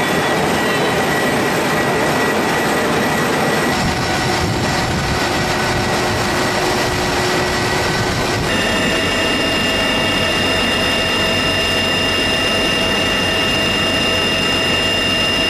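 CH-53 heavy-lift helicopter's turbine engines and rotor running: a loud, steady rush of noise with high turbine whines on top. The whine pitches jump abruptly about four and eight and a half seconds in.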